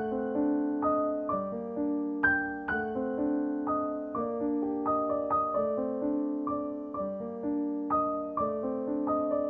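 Background music: a gentle piano piece, single notes and chords struck at an even pace, each fading away after it is struck.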